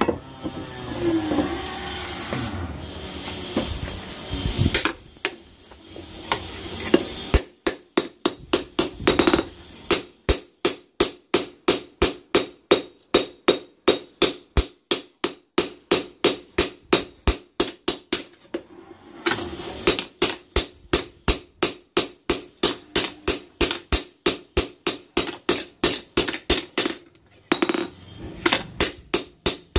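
Hand hammer striking a red-hot bone-chopping cleaver blank on a steel anvil post as the blade is forged. Steady sharp metal-on-metal blows begin several seconds in, about two or three a second, with a short pause midway and another near the end.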